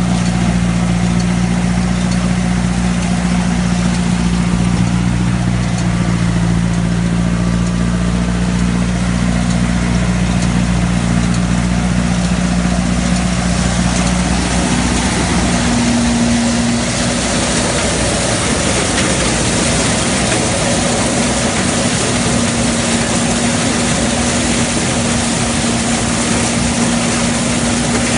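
Tractor-drawn Demireller pick-up lentil thresher (patoz) running while it gathers and threshes windrowed lentils: a steady, loud mix of engine hum and machine noise. About halfway through, the low hum fades and a higher hum with a louder hiss takes over.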